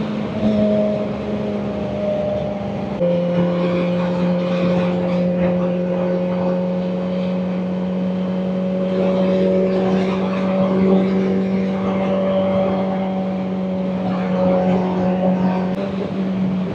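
Kawasaki Ninja ZX-4RR's inline-four engine running at steady cruising speed through a Graves aftermarket exhaust, heard from the moving bike with wind rush. Its pitch steps down once about three seconds in, then holds steady.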